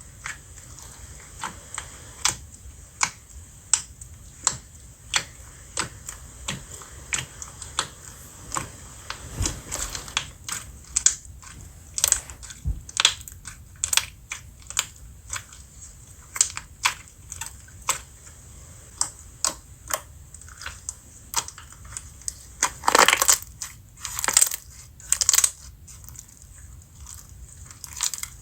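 Slime being pressed and squished by hand, making sharp clicking pops roughly once a second, with a cluster of louder crunching squishes about 23 seconds in.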